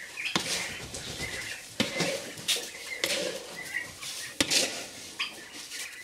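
Plastic scoop stirring and scraping dry compound feed in a metal tub, with a few sharp knocks of the scoop against the tub, as two feeds are mixed together.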